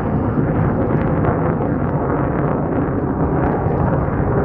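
BAE Hawk T1 jet flying past, giving a loud, steady, rough rush of jet engine noise with a faint crackle.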